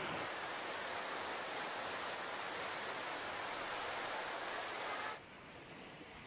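A steady hiss of water noise from flood footage. It changes at a cut right at the start and drops noticeably quieter about five seconds in.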